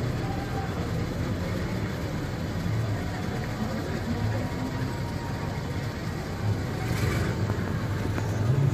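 A 1960s Cadillac's V8 running at a slow, steady low idle as the lowered car rolls off, with street noise around it.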